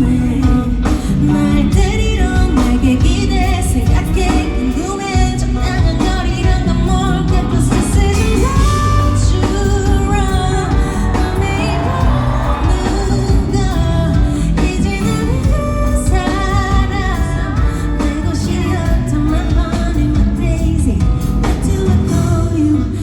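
Live pop song: a woman singing lead over a full band backing.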